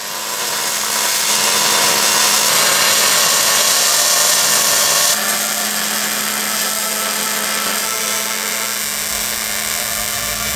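MIG welding arc crackling and hissing steadily as beads are laid on a steel frame, with a low hum under it; the sound shifts slightly about halfway through as a new weld is taken up.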